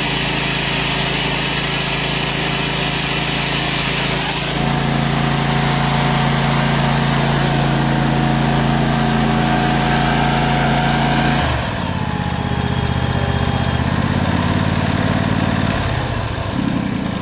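ICS 823 hydraulic chainsaw cutting through concrete block with a harsh grinding noise, which stops about four and a half seconds in. That leaves the ICS P95 power unit's 18 hp Briggs & Stratton Vanguard V-twin gas engine and hydraulic pump running steadily. About eleven and a half seconds in, the engine note drops and gets quieter.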